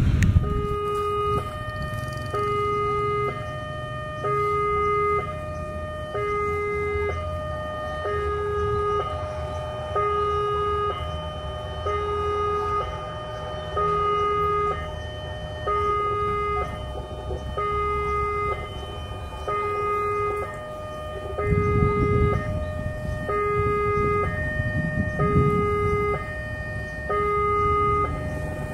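Railway level-crossing warning alarm sounding: an electronic two-tone signal alternating between a lower and a higher note about once a second, warning that a train is coming. A low rumble swells briefly about three quarters of the way through.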